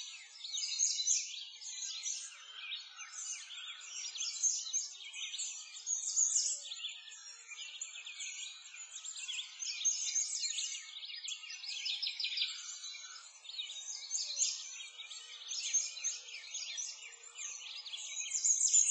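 Songbirds chirping and singing together: many quick, high-pitched overlapping calls with no pause.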